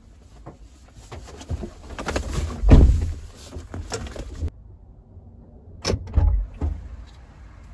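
Thumps and rustling as people move about inside a car's cabin, with a heavy thud about three seconds in and two more near the end.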